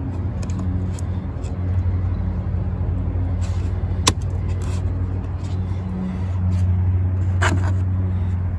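Plastic push clips being pressed into a trim cover: a sharp click about four seconds in and a crackling snap near the end, as one clip's leg breaks. A steady low motor hum runs underneath.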